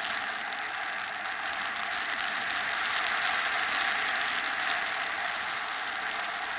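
Wind rushing over a camera on a paraglider in flight: a steady dense hiss with a fine rapid crackle through it, swelling slightly midway.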